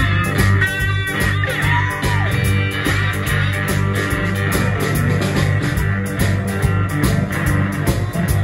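Live blues band playing an instrumental passage: electric guitars over bass guitar and a drum kit keeping a steady beat.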